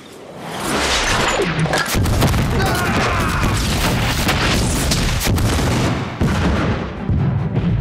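A string of hand-grenade explosions, film sound effects. The blasts swell over the first second, grow heavy about two seconds in, and run together into a continuous rumble with only brief dips.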